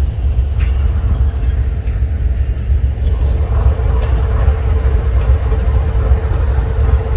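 Diesel locomotive idling at a standstill, a steady low rumble; a steady whine joins in about three seconds in.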